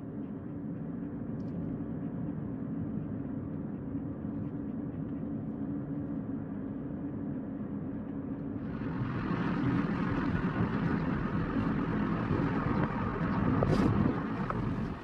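A car running, with a steady low hum. About nine seconds in, a louder rushing hiss joins it and swells just before the end.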